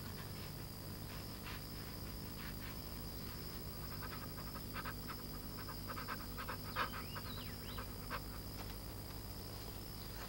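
Collared peccaries snuffling and chewing as they root for fallen figs: a scatter of short sniffs and crunches, thickest around the middle, over a steady high insect drone.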